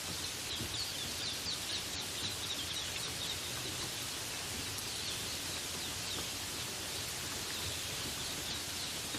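Steady rain falling, with small forest birds chirping in quick, high, short notes over it, busiest near the start and again around the middle.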